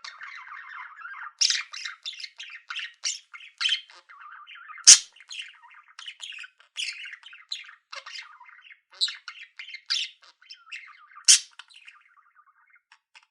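Budgies chirping and chattering: a steady run of short, varied chirps and squawks over a soft warbling chatter, with a few sharper, louder chirps, the loudest about five seconds in.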